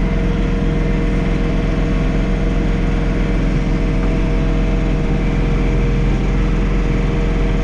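John Deere 3046R compact tractor's three-cylinder diesel engine running steadily.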